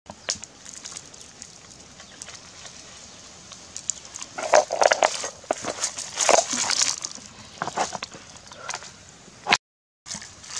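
Leaves rustling and crackling as they are handled and laid over a fish on a rock, in a dense run of crackles in the middle and a few more later.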